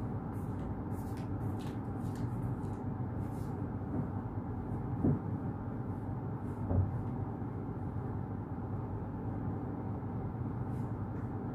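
Steady hum of a room air conditioner, with two soft thumps about five and seven seconds in as a bed sheet is tugged across the bed.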